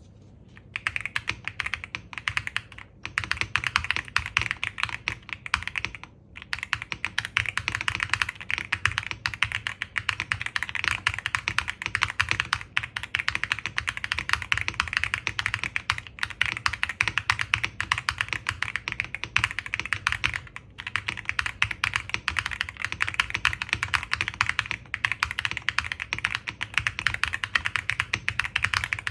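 Fast continuous typing on a Zouya GMK61 mechanical keyboard with lightly lubed Haimu linear switches, with dense key clacks and brief pauses about 3, 6 and 20 seconds in.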